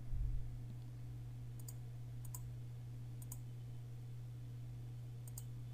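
A computer mouse button clicking faintly, a handful of separate clicks spread over the seconds, as a web date picker is paged back through the years. A steady low hum lies underneath.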